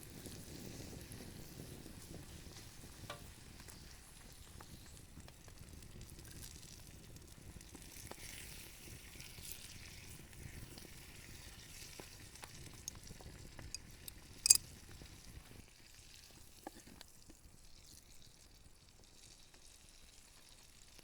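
Potatoes sizzling faintly in butter in a pan just taken off the campfire, the sizzle growing quieter about three-quarters of the way through. A single sharp click about two-thirds of the way in.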